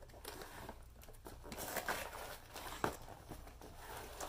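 Faint crinkling of a plastic sleeve and rustling of a cardboard box being handled, with a few light knocks.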